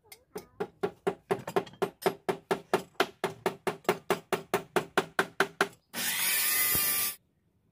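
Wooden pestle pounding in a large mortar: a steady run of knocks at about four a second, each with the same ringing note. Near the end the knocking stops and about a second of loud rushing noise follows, cutting off abruptly.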